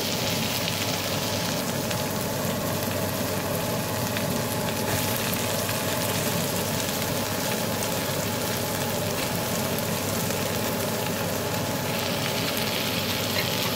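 Chopped onions and garlic, joined by drumstick pieces, sizzling steadily in hot oil in an aluminium kadai.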